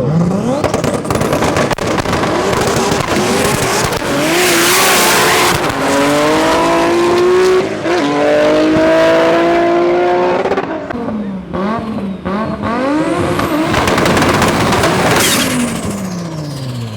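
Drag race car launching from the start line and accelerating hard, its engine pitch climbing and dropping back at each of several gear changes. Near the end the engine pitch falls steadily away.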